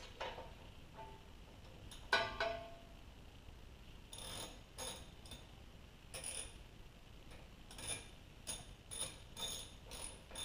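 Hand ratchet wrench clicking in short, irregular strokes as bolts on a car's front strut and steering knuckle are snugged up. A single ringing metal clink comes about two seconds in.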